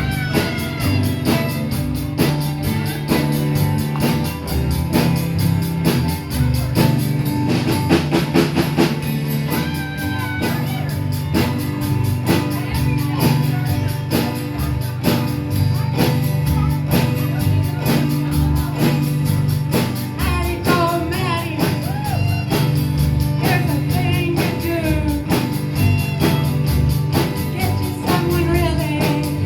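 Rock and roll song with singing over guitar and a steady drum beat.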